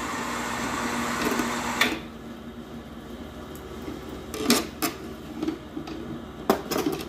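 Hot wax hissing and sizzling around a wooden hive lid in a dipping tank, its froth already settled, the hiss cutting off about two seconds in as the lid comes out. Then a few sharp knocks.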